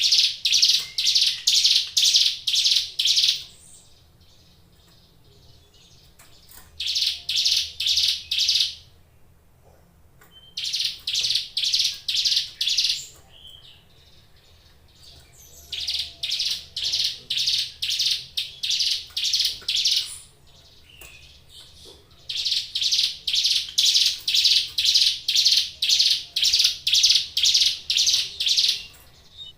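Ciblek gunung, a small prinia, singing in bouts of rapid, evenly repeated high notes, about three a second, with pauses of two to three seconds between bouts; the last bout is the longest.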